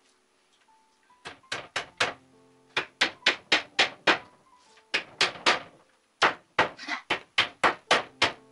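Music with a sharp percussive beat: quick runs of struck notes, about four a second, over held tones that change pitch, starting about a second in.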